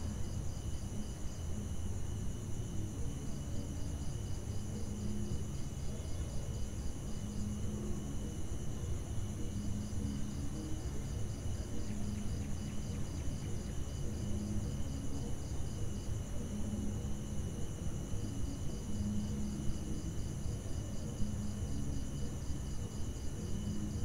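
Night ambience of crickets and other insects chirping steadily, with a pulsing trill that comes and goes in stretches of a few seconds, over a low, steady rumble.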